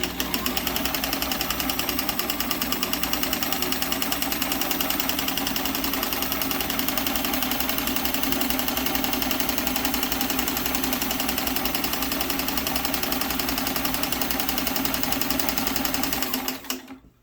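Sears Kenmore 158.1703 sewing machine running steadily at a fast, even stitching rhythm, driving a 36149 monogrammer attachment as it stitches a large-letter monogram; it stops near the end.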